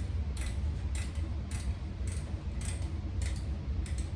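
Hand-tightening a bolt with the small assembly tool that came in the flat-pack table kit: sharp metal clicks about twice a second, over a steady low hum.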